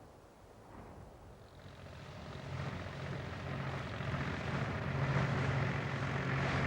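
A motor engine drawing closer: a steady low hum with a rushing noise, fading in about a second and a half in and growing steadily louder.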